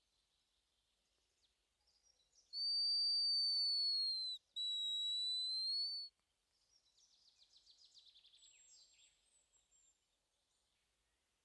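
Hazel grouse whistle song: two long, thin, high whistles, the first dipping slightly at its end, followed by a fainter rapid trill of falling notes.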